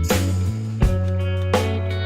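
Background music: guitar chords over a steady drum beat.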